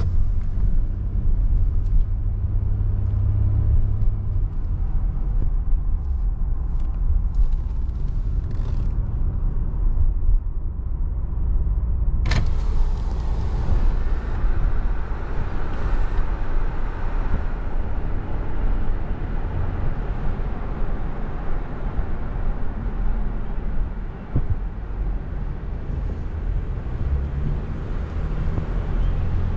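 A car driving, heard from inside the cabin: a steady low road and engine rumble with a hiss of tyre and wind noise. A sharp click comes about twelve seconds in, after which the hiss is louder for a few seconds.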